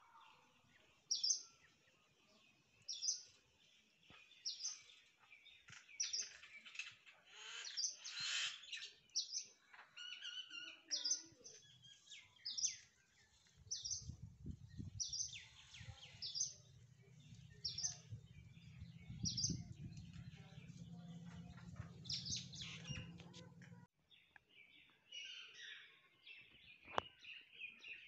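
Birds chirping: one bird repeats a short, high chirp about every second and a half while others call around it. From the middle of the stretch a low steady hum runs underneath and cuts off suddenly.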